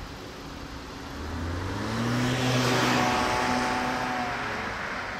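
Electric train running past, its traction motors whining over the rush of the wheels; the sound swells to a peak about three seconds in and then eases off.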